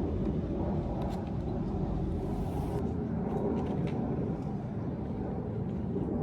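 Steady low rumble of a vehicle.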